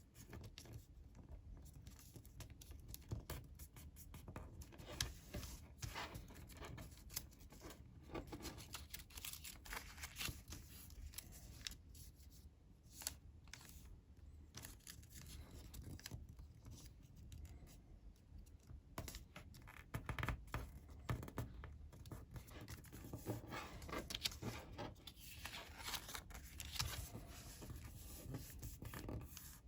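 Colored origami paper being folded and creased by hand. Irregular crinkles, rustles and short scratchy strokes go on throughout as folds are pressed flat.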